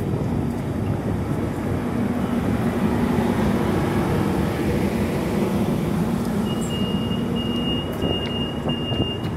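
Diesel locomotive of a commuter train running while the train stands at the platform, a steady low engine rumble heard close up. A thin, steady high-pitched tone joins about two-thirds of the way through.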